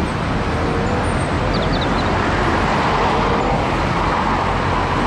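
Red double-decker city bus driving past in street traffic: steady engine hum and road noise.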